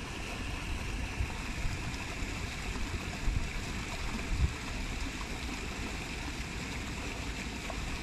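Flowing water, a steady stream-like rush and gurgle with no let-up, swelling briefly louder a couple of times around the middle.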